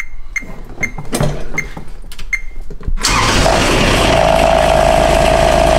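Regular light ticking, about three a second, then about three seconds in the Kubota RTV900's three-cylinder diesel engine is started on the key after its glow-plug preheat, catches at once and runs steadily.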